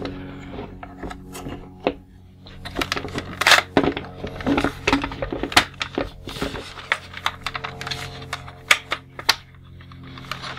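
Hard plastic parts of a G.I. Joe Destro's Dominator toy vehicle clicking and knocking as its rotor blades are folded out and the toy is handled: an uneven run of sharp clicks, busiest in the middle. Background music plays underneath.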